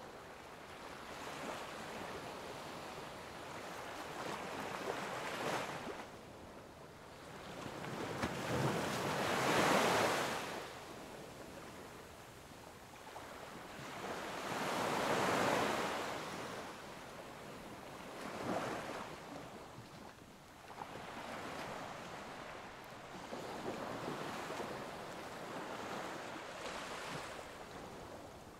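Waves washing onto a shore, a rushing noise that swells and falls back every few seconds, the largest swells about a third and a half of the way through.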